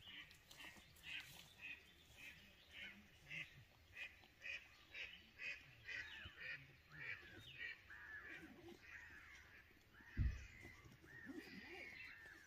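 Duck quacking in a repeated series, about two calls a second, the calls turning more drawn-out and wavering later on. A single low thump about ten seconds in.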